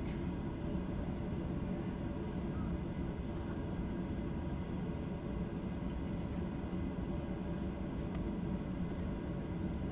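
Steady cabin drone inside a Boeing 737-800 holding on the ground, its CFM56 engines at idle, with a few faint steady tones over a low rumble and no change in level.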